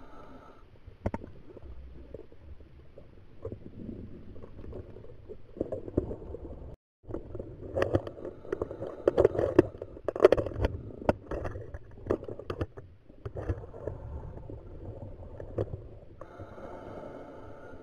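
Underwater recording from a scuba diver's camera: exhaled regulator bubbles gurgling and rumbling past the microphone, with scattered sharp clicks, heaviest about eight to eleven seconds in. A brief gap of dead silence falls a little before halfway.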